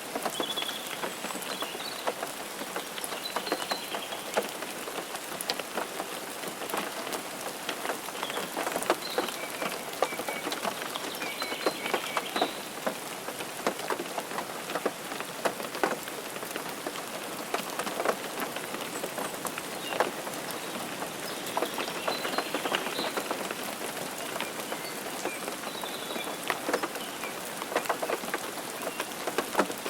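Steady rain falling on a hard surface, a constant hiss with many individual drops ticking sharply and irregularly on top.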